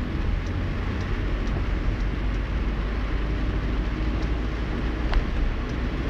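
Steady low rumble and road noise of a vehicle in motion, heard as a passenger on the move.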